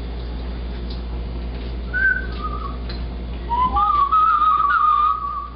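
A person whistling a wandering tune: a couple of short phrases about two seconds in, then a longer, louder run of notes through the second half.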